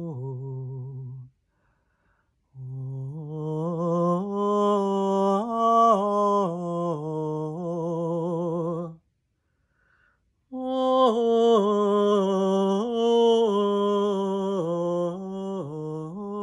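A woman's voice singing wordlessly in long, held, wavering notes, like a chant. The singing breaks off twice for pauses of about a second and a half, about a second in and again past the middle.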